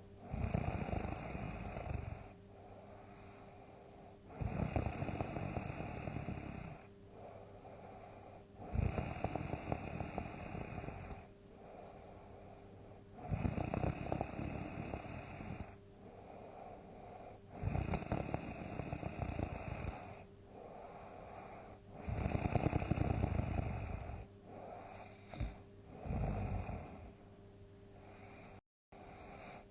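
A person snoring in deep sleep: big snores one after another, each about two seconds long, coming about every four and a half seconds, with quieter breathing between. Near the end the snores come shorter and broken.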